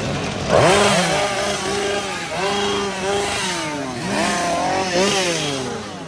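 Gasoline chainsaw revved up and let fall several times, its engine pitch sweeping sharply up and dropping back, loudest about half a second in.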